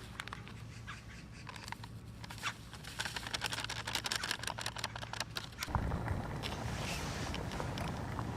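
Light clicks and scraping of a utensil working in a pot of soup, growing busier about three seconds in. Near the six-second mark a steady rushing noise starts suddenly and keeps going.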